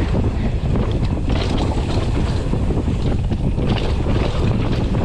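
Wind rushing over the microphone of a mountain bike riding down a trail, over a steady low rumble of tyres on the ground, with faint small knocks.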